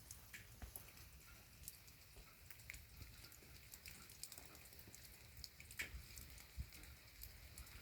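Faint rain: individual raindrops ticking at irregular intervals over a soft low rumble, with one sharper drop just before six seconds in.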